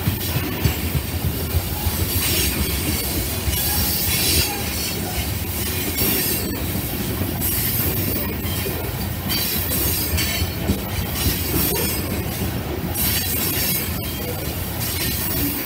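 Oil tank cars of a freight train rolling past on a curve: a steady rumble of steel wheels on the rails, with high-pitched wheel squeal coming and going every few seconds.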